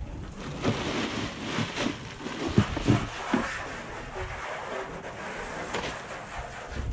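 Outdoor noise with wind rushing on the microphone and a few low thumps and knocks about two to three and a half seconds in.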